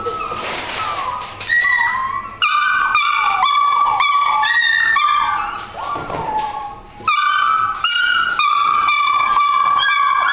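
Seven-week-old dalmatian puppies yelping and whining in high, sliding cries during rough play. The cries come in quick runs with short breaks, with a brief lull about six to seven seconds in.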